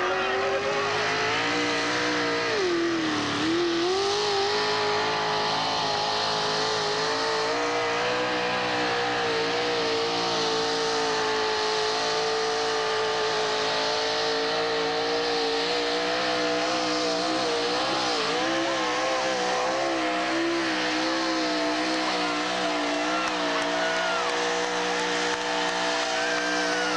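Mud-racing pickup truck's engine revving up and then held at high revs under load as the truck churns slowly through the mud pit. The pitch dips briefly about three seconds in, then holds mostly steady with small wavers.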